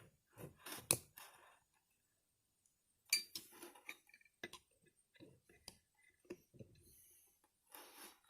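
Light clicks, taps and scrapes of small metal carburetor parts and hand tools being handled during reassembly, irregular, with the sharpest knocks about a second in and just after three seconds.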